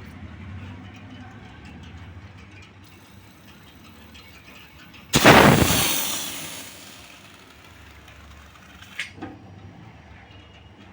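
A sudden loud blast of pressurised gas rushing out of a fridge condenser coil being flushed with CTC solvent, about five seconds in, fading away over a second and a half, over a low steady hum.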